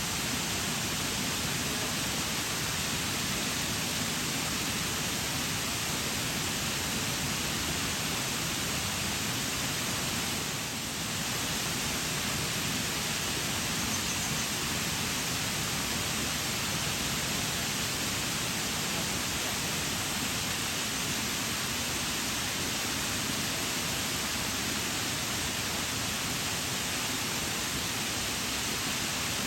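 Waterfall: falling water in a steady, even rush, with a brief slight dip in level about eleven seconds in.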